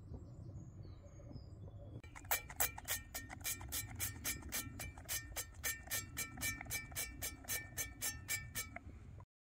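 Pump-action cooking oil spray squirted over and over into a non-stick frying pan, starting about two seconds in: about three short sprays a second for some seven seconds. Before it, faint bird chirps.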